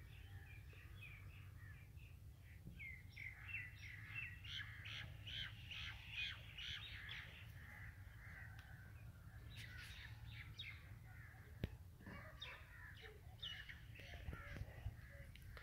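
Faint bird calls: many short chirping notes in two spells, over a low steady hum.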